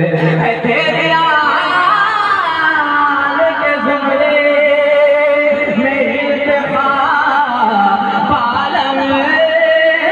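A man singing a naat through a microphone and PA, unaccompanied, drawing out long sliding and wavering notes with no clear words.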